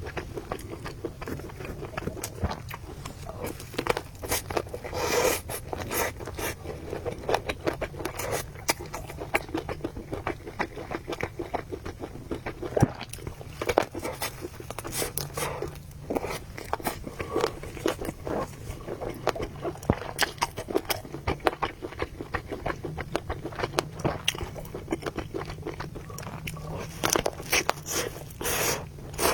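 A person eating close to the microphone: irregular chewing and biting sounds, mixed with scrapes and clicks that fit utensils on a bowl, while eating spicy noodles and meatballs.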